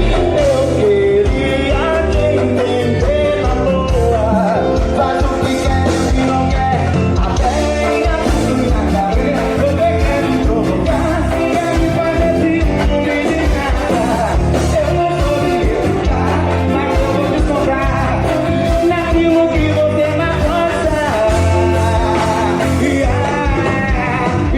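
A band playing an up-tempo song with a singer, drums keeping a steady beat under the vocal line.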